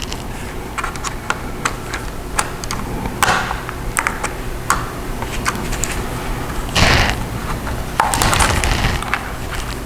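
Replacement keyboard being handled and fitted into a Dell Latitude E5450 laptop: irregular small plastic clicks and taps, with longer scraping rustles about seven seconds in and again around eight to nine seconds.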